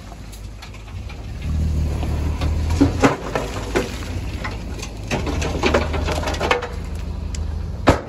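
Diesel engine of a Komatsu D20P crawler bulldozer running, getting louder about a second and a half in as it takes on work, with repeated metallic clanks and knocks.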